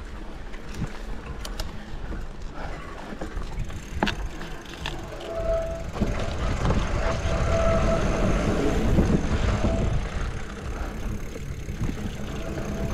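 Mountain bike riding down a dirt trail: a steady low rumble of wind and tyres on the camera mic, with scattered clicks and rattles from the bike over bumps. A thin steady whine sounds for a few seconds midway.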